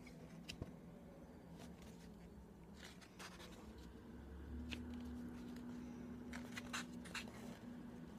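Faint rustling and scattered light clicks, like handling noise, over a low steady hum that grows a little louder about halfway through.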